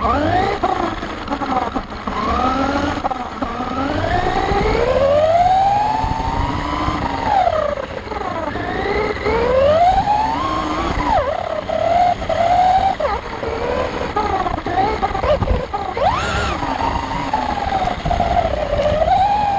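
Electric RC buggy (Vandal 4WD) motor and drivetrain whining, the pitch rising and falling again and again as the throttle is worked, heard from a camera on the car itself with low rumble from the ground and wind.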